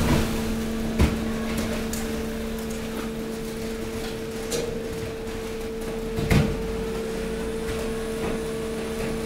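Hydraulic waste compactor running: a steady hum from its hydraulic drive, under light rattling of the mixed waste as it shifts. There are two knocks, one about a second in and a louder one about six seconds in.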